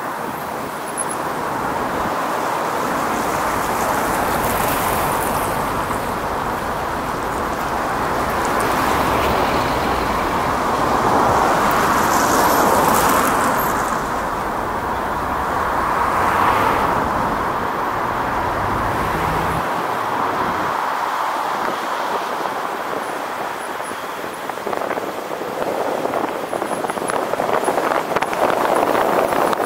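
Road traffic noise: a steady wash of tyres and engines on a city street, swelling twice, about 12 and 16 seconds in.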